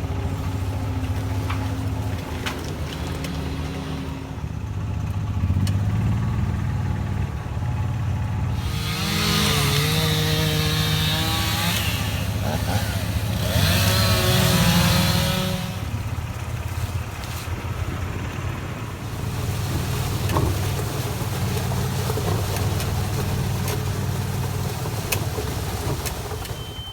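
An engine running steadily throughout. In the middle there is a louder stretch of about seven seconds in which a pitched sound rises and falls.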